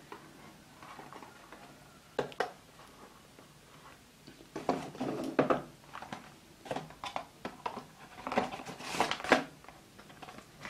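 Cardboard phone boxes and packaging being handled and moved on a desk: scattered taps, scrapes and rustles in a few short clusters.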